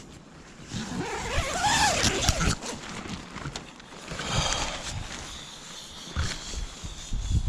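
Tent door zipper being pulled open, with a drawn-out vocal sound that rises and falls in pitch partway through.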